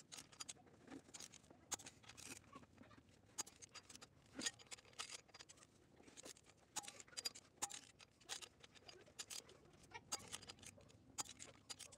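Faint, irregular light clicks and taps of small metal parts and hand tools being handled, such as flywheel bolts being fitted.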